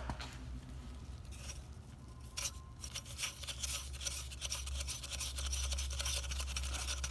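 A gloved finger turning a turbocharger's compressor wheel by hand, a rapid scratchy rubbing that thickens and grows louder about two and a half seconds in. The wheel doesn't spin as freely as it should, which the owner thinks may just need a little oil.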